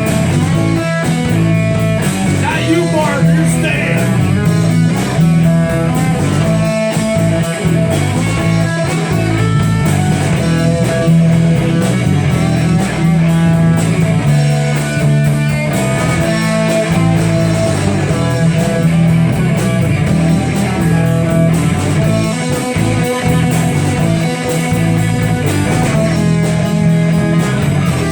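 Live rock band playing an instrumental passage: electric guitar lines over bass and drums.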